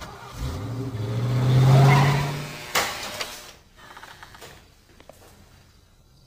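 A car engine accelerating, its pitch rising and growing louder for about two seconds, then cutting off with a sharp knock; fainter clicks follow.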